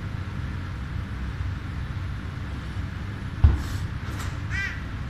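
A steady low rumble with one sudden loud thump about three and a half seconds in, followed by brief rustling and a short high squeak that rises and falls.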